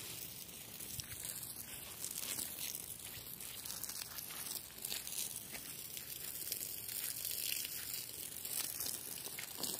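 Footsteps rustling through dry grass and pine needles, an irregular crinkling without a clear beat.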